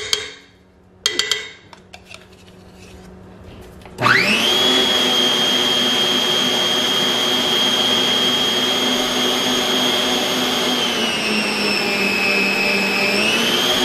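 A metal measuring cup and spoon clink against the mixer bowl twice. Then, about four seconds in, an electric stand mixer starts: its motor whine rises quickly to a steady run as the whisk beats the cream cheese and sour cream batter. Near the end the pitch sags for a couple of seconds under the load, then climbs back.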